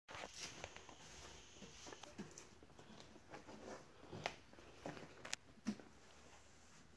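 Faint, irregular footsteps and scuffs on a concrete floor, with a few sharper taps between about four and six seconds in.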